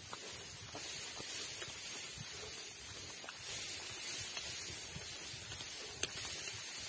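Faint steady hiss with scattered soft ticks and rustles, with a sharper click about six seconds in.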